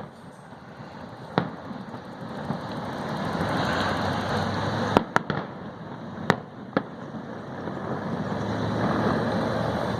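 Aerial fireworks shells bursting overhead: about six sharp bangs, two of them close together about five seconds in. Between the bangs a dense rushing noise swells and fades.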